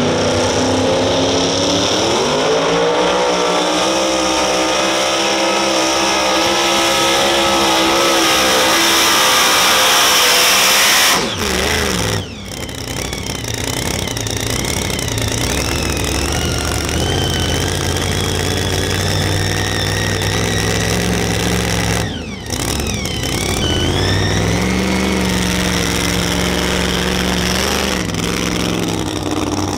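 Super modified pulling truck's supercharged engine at full throttle under load. Its pitch climbs about two seconds in and holds high and loud until it cuts off suddenly about eleven seconds in, as the pull ends. An engine then runs at a lower, steadier speed, drops out briefly near the twenty-two-second mark and comes back with a short rise in pitch.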